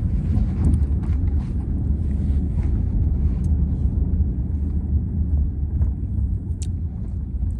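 Steady low rumble of a car driving, heard from inside the cabin, with a few light clicks and one sharper click near the end.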